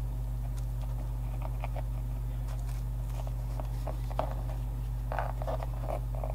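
Soft, scattered taps and rustles of leather and tools being handled during hand leatherworking, bunched together about five seconds in, over a steady low hum.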